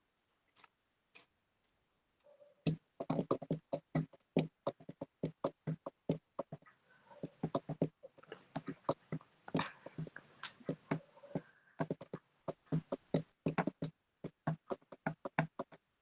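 Typing on a computer keyboard: quick, irregular key clicks, several a second, starting about three seconds in after a couple of faint clicks.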